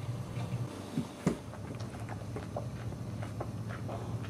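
Newborn boxer puppies squeaking and squealing in short, high cries, two louder rising squeals about a second in, over a steady low hum.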